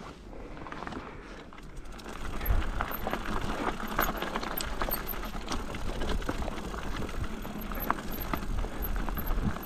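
Mountain bike rolling over a rocky trail: tyres crunching on stones, with scattered clicks and rattles and a low rumble. It gets louder from about two seconds in.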